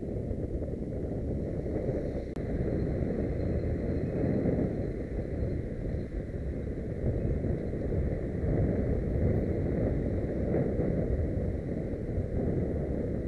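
Wind rushing over a bike-mounted camera's microphone while cycling on a road, mixed with the rumble of passing car traffic. There is a brief drop-out about two seconds in.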